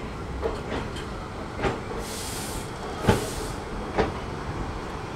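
Passenger train of ICF coaches rolling slowly out of a station yard, its wheels giving irregular sharp clacks over rail joints and points above a steady rumble. Two brief hisses come in the middle, and the loudest clack lands around then.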